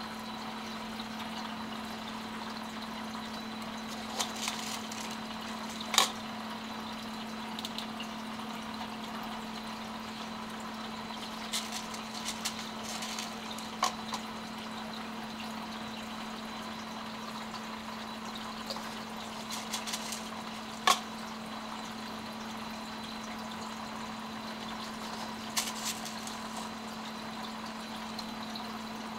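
Aquarium filter running: a steady hum under a constant wash of falling water. A few short, sharp splashes stand out, the loudest about six and twenty-one seconds in.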